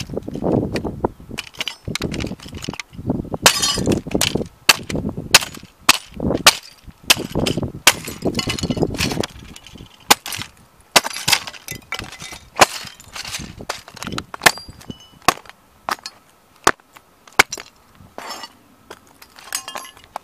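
A 1:18 scale Ferrari model car cracking, snapping and crunching under sneaker soles stamping and grinding on paving stones. Dense grinding crunches fill roughly the first half, then come scattered single sharp snaps and clicks as the pieces break further.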